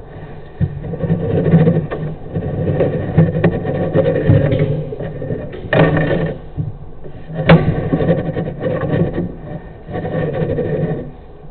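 Uneven rumbling that swells and fades, with a couple of sharp knocks, as picked up by a sewer inspection camera being worked through a pipe.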